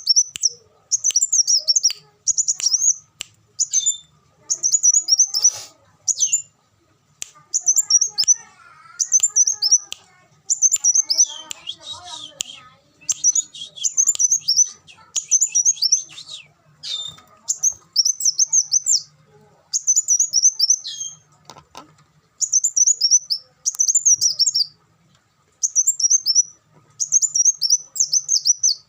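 A kolibri wulung sunbird singing: short bursts of fast, high-pitched twittering chirps, repeated phrase after phrase with brief pauses between them.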